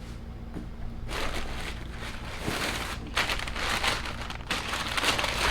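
Packing material crinkling and rustling as a part is unwrapped, starting about a second in and growing busier toward the end, over a low steady hum.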